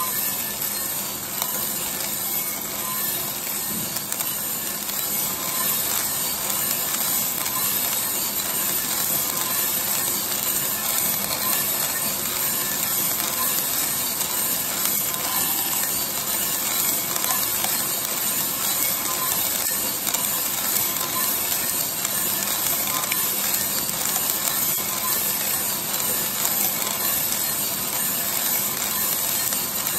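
Green coffee beans tumbling in the rotating steel drum of a 3 kg Mill City coffee roaster, a dense, steady rattling clatter.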